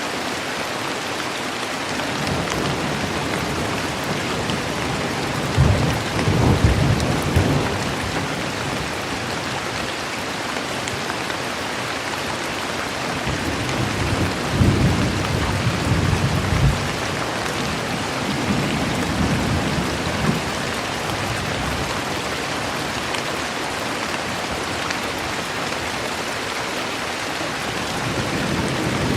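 Steady, even rain hiss with low rolls of thunder rumbling under it: the strongest come about six seconds in and around fifteen seconds in, a weaker one near twenty seconds, and another starts building near the end.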